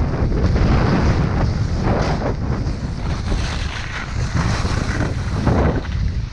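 Wind buffeting the microphone of a skier going downhill, with the hiss of skis sliding over snow that surges at a few turns, most strongly about two seconds in and near the end.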